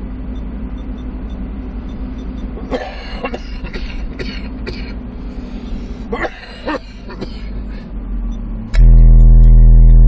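Truck engine idling steadily, with a few short, indistinct noises in the middle. Near the end, heavy-bass electronic music comes in very loud through the car stereo's subwoofers.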